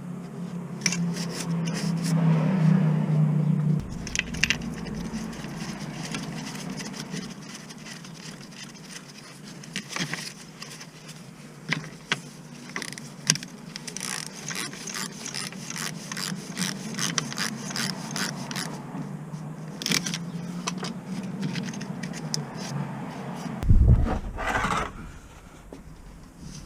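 Scraping and clinking of handled metal objects, with scattered sharp clicks and one heavy thump near the end; a steady low hum runs for the first few seconds and then stops.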